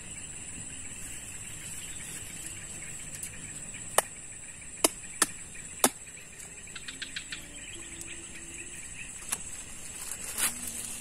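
Steady high-pitched insect chorus. Four sharp clicks come between about four and six seconds in, a run of small ticks follows, and two more clicks sound near the end.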